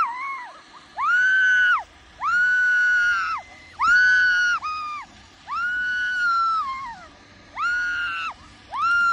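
A person screaming over and over while riding a zipline: about six high, held screams of roughly a second each, with short breaks between them.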